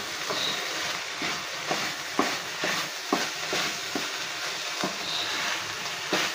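Spatula stirring and scraping crumbled shark fish (sura puttu) in a frying pan over a high flame, a steady sizzle with scraping strokes about twice a second. This is the final dry-frying stage that makes the crumble separate and fluffy.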